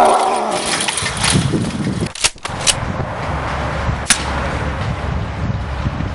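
A zombie's groan at the start, then a single handgun shot about four seconds in, over a steady low rumbling background.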